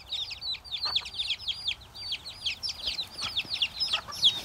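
A brood of baby chicks peeping continuously: many short, high, downward-sliding peeps overlapping, several each second.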